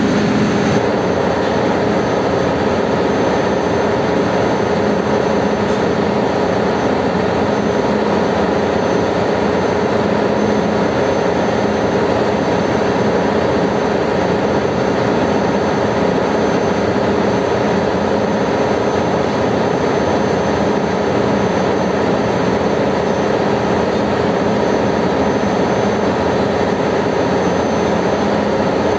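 Steady drone of a ship's engine-room machinery running, a dense mechanical noise with a few steady hums in it.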